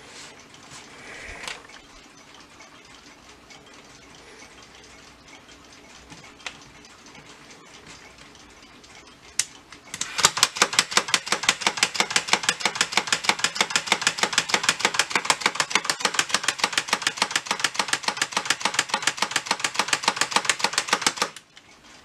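Casio AC-100 robot alarm clock's alarm going off in a loud, rapid, even run of strikes that starts about ten seconds in, just after a sharp click, and cuts off suddenly about a second before the end. Before it, faint handling of the clock.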